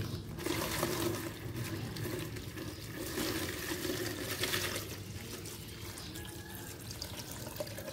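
Water poured from a plastic scoop into a plastic bottle holding dried Indian almond leaves. It is a steady splashing pour that eases off after about five seconds.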